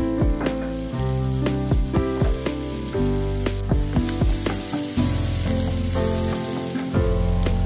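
Diced carrot sizzling and frying in butter and oil in a nonstick pan while a wooden spatula stirs it, the hiss growing stronger in the second half. Background music plays underneath.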